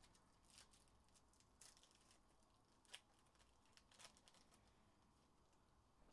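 Near silence with a few faint short rustles and clicks of trading cards and foil packs being handled, the clearest about three seconds in.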